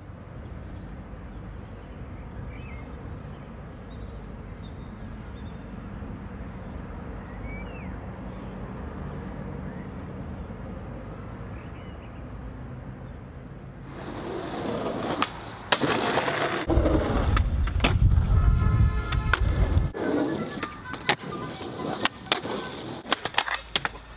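Steady outdoor ambience with faint high chirps for about fourteen seconds, then louder skateboard sounds: wheels rolling on concrete with a heavy rumble, and repeated sharp clacks and knocks of the board.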